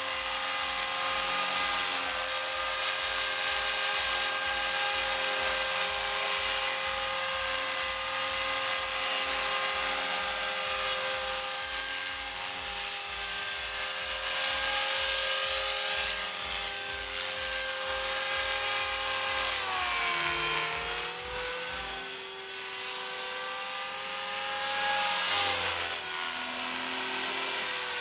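Electric Mini Titan E325 RC helicopter running at flying speed, a steady whine from the electric motor and drive with the main rotor, as it lifts off and flies. About two-thirds of the way through the pitch dips and swoops as it manoeuvres, then rises again near the end.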